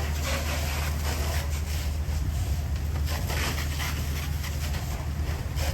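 Fire engine running as a steady low drone, with a noisy hiss and scattered crackling on top from hose streams and burning during the fire attack.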